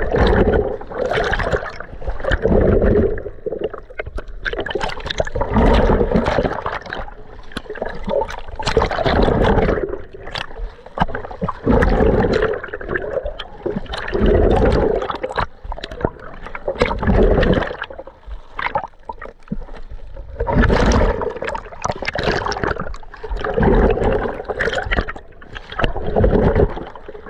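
Water sloshing and gurgling around an underwater camera carried by a swimming snorkeler, coming in uneven surges every second or two.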